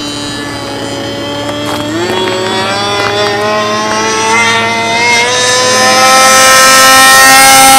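Remote-control P-51 Mustang model plane's engine running, its pitch stepping up about two seconds in and then climbing steadily as it gets louder toward the end.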